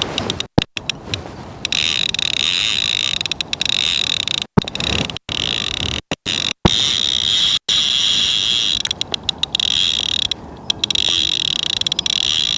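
Fishing reel's drag giving line to a hooked barbel running against it: a high, rapid ratcheting buzz that keeps going, cutting out briefly several times. Wind buffets the microphone underneath.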